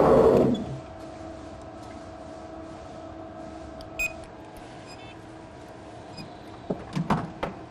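A barcode scanner beeps once, briefly and sharply, as its red laser reads a vehicle barcode label. Before it, a loud rumble cuts off about half a second in, leaving a low steady hum, and a few short knocks come near the end.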